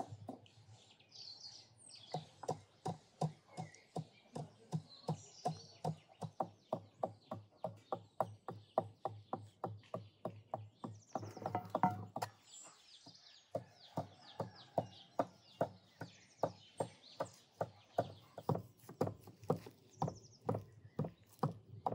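Steady, even knocking or clicking, about three times a second, with birds chirping now and then.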